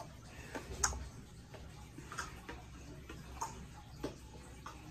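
Faint, irregular clicks and taps from a child stepping and moving about in a small hallway, the sharpest about a second in.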